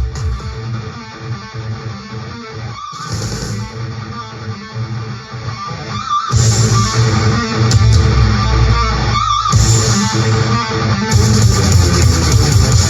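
Rock music with electric guitar playing through a pair of ION Tailgater Tough Bluetooth speakers linked in true wireless stereo, recorded binaurally; it gets louder about six seconds in.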